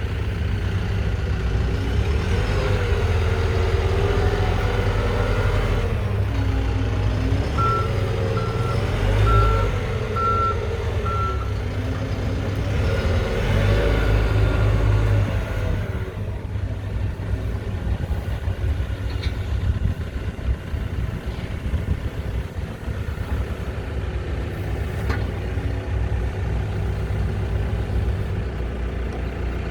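Lonking 84C backhoe loader's Perkins diesel engine working, its pitch rising and falling under load for about the first half. A run of short reversing-alarm beeps sounds about a third of the way in. The engine then settles to a steadier, quieter run.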